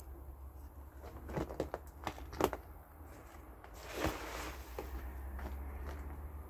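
Scattered footsteps and light knocks on an old floor, over a steady low rumble, with a short scraping rush about four seconds in.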